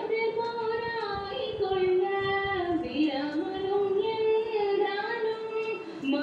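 A high singing voice carrying a melody, with long held notes that glide from one pitch to the next: the song a dance is being performed to.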